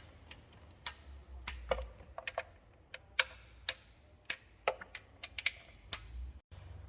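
Torque wrench clicking as the valve cover bolts are tightened to 10 N·m: a string of sharp, irregularly spaced clicks, some in quick pairs, over a faint low hum.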